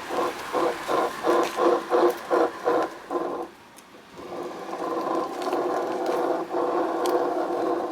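Suzuki Let's 4 Palette scooter's four-stroke engine running with a clattering mechanical rattle and grinding from a broken crankshaft bearing, a fault typical of Suzuki scooter engines. For the first three seconds or so the sound swells and fades about three times a second; after a brief drop it runs steadily.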